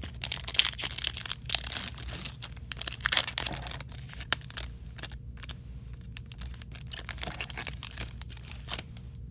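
A trading card pack wrapper being torn open and crinkled, densest in the first four seconds, then lighter intermittent rustling and clicks as the cards are handled.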